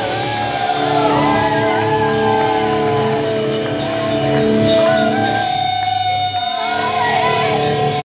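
Punk rock band playing live: electric guitars with long held notes that bend in pitch, and shouting over them.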